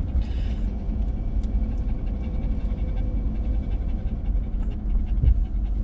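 Steady low rumble of a truck's engine and tyres heard from inside the cab while towing a camper at low speed. A single low clunk comes about five seconds in, of the kind the Reese Dual Cam sway-control hitch makes.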